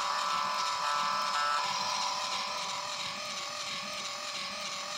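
Hasbro i-Dog robot toy's small speaker playing a synthesized sad riff: a few held electronic notes, then a wavering, hissy tone that stops abruptly at the end.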